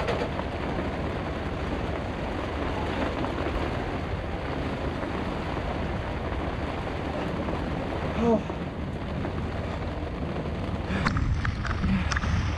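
Steady hiss of storm wind and rain around a sailboat, with wind buffeting the microphone. A few sharp ticks come near the end.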